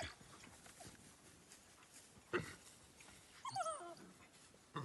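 African wild dogs calling, faint: a short sharp call about halfway through, then a quick run of high, wavering twittering calls that fall in pitch.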